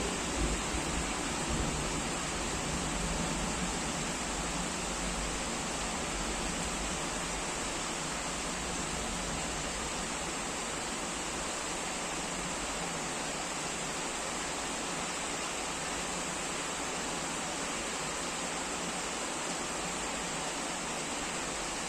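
Heavy rain falling in a steady hiss, with a low thunder rumble dying away in the first couple of seconds.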